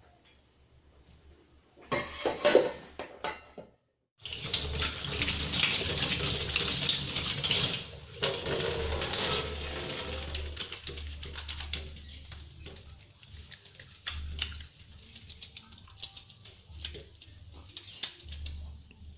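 Water running from a tap into a sink, splashing unevenly. It starts after a short clatter a few seconds in.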